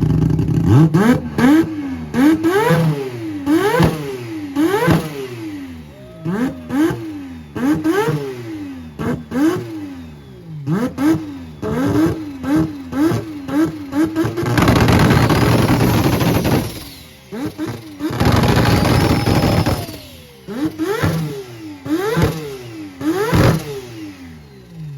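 Rotary engine revved again and again in quick blips, its pitch sweeping up and dropping back about once a second, with a faster run of short blips around the middle and sharp pops throughout. Twice it is held at high revs for a couple of seconds in a harsh, loud burst.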